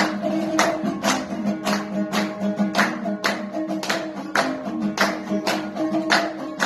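Dambura, the Afghan long-necked lute, playing a folk tune over steady held notes, with several people clapping hands in time on the beat, a little under two claps a second.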